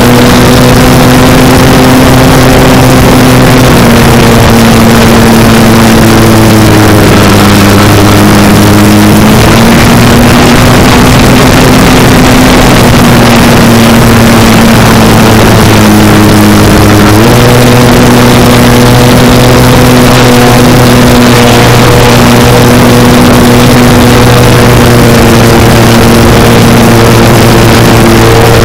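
Electric motor and propeller of a GWS Focke-Wulf 190 radio-controlled foam model plane in flight, a steady pitched drone over rushing noise. The pitch dips and rises several times as the throttle changes, stepping sharply back up about seventeen seconds in.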